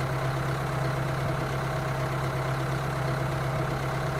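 Tractor engine idling with a steady, unchanging low hum.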